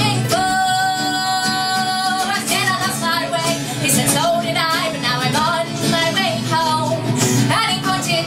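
Folk band playing live: a female voice singing over acoustic accompaniment, with one long held note near the start lasting about two seconds.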